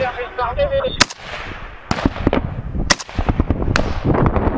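Rifle fire in a firefight: loud close shots at uneven intervals, about every half second to a second, over a crackle of fainter shots from further off.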